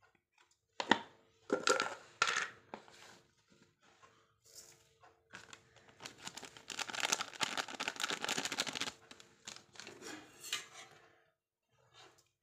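Steel kitchenware clinking: a small steel bowl knocked three times against a large steel mixing bowl to shake spice out, then a few seconds of a plastic spice packet crinkling as masala is shaken out of it, with light clicks after.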